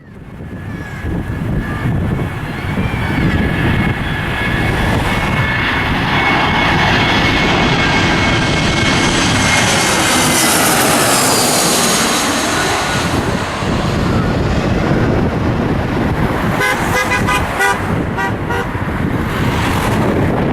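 Jet airliner engines passing close by: a steady turbine whine that grows, peaks about halfway through and falls in pitch as the aircraft goes past, over a low rumble.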